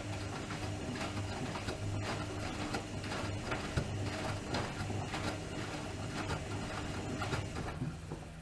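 Bauknecht WAK 5750 G washing machine's brushed drum motor running in pulses as it turns the drum, with irregular clicks and knocks from inside the drum. The motor stops about eight seconds in, leaving a steadier hum.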